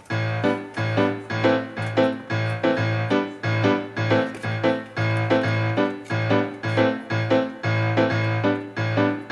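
Background music: a piano-led piece with evenly repeating notes and a steady pulse.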